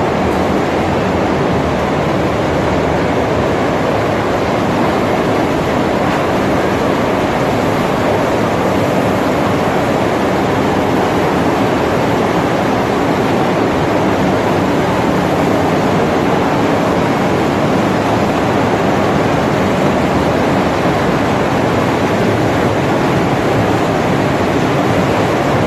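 A chicken-feet skin-peeling and processing line running, with machinery and water churning in its stainless steel tanks. It makes a steady, even noise with no distinct knocks or rhythm.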